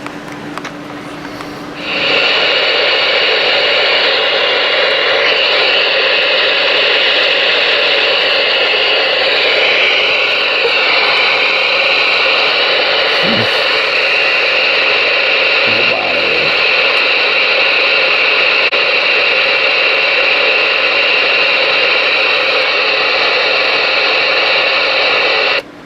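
Galaxy DX-98VHP ten-meter radio's receiver putting out loud, steady static through its speaker. The static comes on suddenly about two seconds in and cuts off abruptly just before the end.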